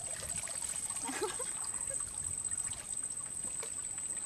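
Water trickling and dripping back into the river from a freshly hauled cast net, held up heavy with fish.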